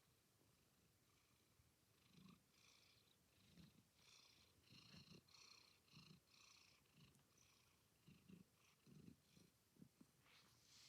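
A domestic cat purring, faint and close, the purr swelling and fading in pulses about once a second with each breath.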